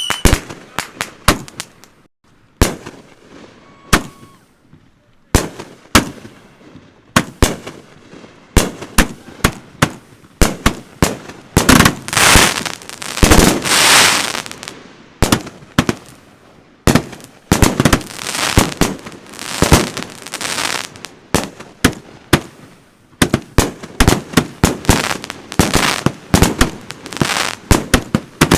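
Fireworks show of consumer firework cakes firing: a rapid string of sharp launch thumps and aerial bangs. It thins out a couple of seconds in, then builds into dense volleys with crackling about halfway through, again a little later, and keeps up quick bangs near the end.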